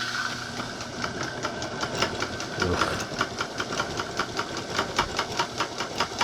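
Small homemade metal lathe running on its fastest speed, its electric motor driving the spindle through belts, step pulleys and a jack shaft on a temporary setup. It runs steadily with a hum, and from about two seconds in a regular rattle of about four to five knocks a second.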